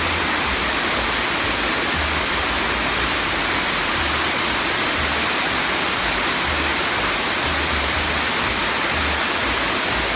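Rushing water, a loud even hiss with an uneven low rumble underneath.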